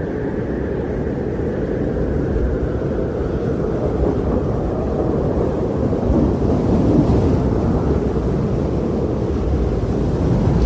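Wind blowing steadily as a low, deep rushing rumble, swelling a little about two-thirds of the way through.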